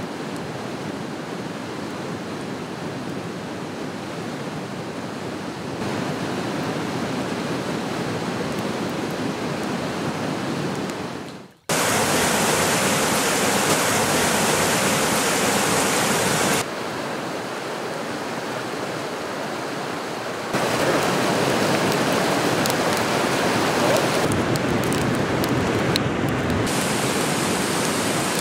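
Steady rushing of river rapids and whitewater, heard across several edited shots. It is quieter for the first eleven seconds or so, dips out briefly, then comes back louder, and its level steps up and down at each cut.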